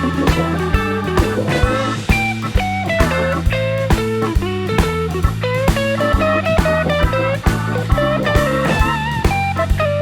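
Background music: a blues-rock tune with a bending lead electric guitar over bass and a steady drum beat.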